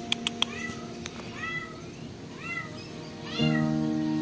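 Cats meowing over and over, about one call a second, each call rising then falling in pitch. Three sharp clicks sound right at the start, and a steady low hum gets louder near the end.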